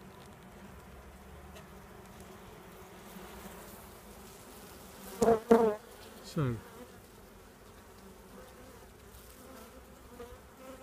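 Honeybees buzzing in a steady hum over the frames of an opened hive. About five seconds in, a short spoken word breaks through.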